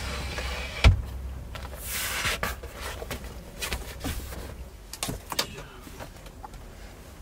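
Bedding being handled on a camper's over-cab bunk: fabric and a sleeping bag rustling, with a sharp knock about a second in and scattered light knocks and clicks against the bed panels. A low hum underneath stops a little past four seconds in.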